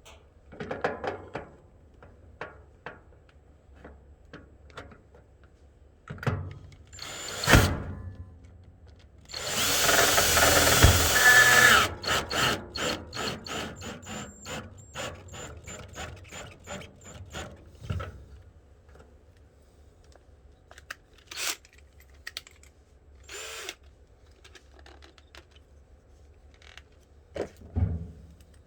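Power drill run in one burst of about two and a half seconds near the middle, driving a screw to mount an electrical box, amid clicks and knocks of parts being handled, with one sharp knock shortly before it. A quick run of ticks follows the burst and fades out.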